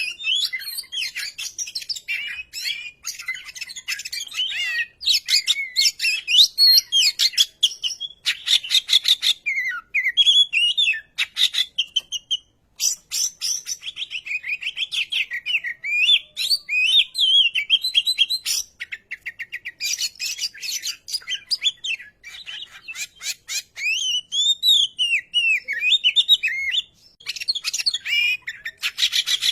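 Oriental magpie-robin singing nonstop: a varied string of loud whistled phrases that swoop up and down, broken by fast rattling, ticking runs and a few short pauses.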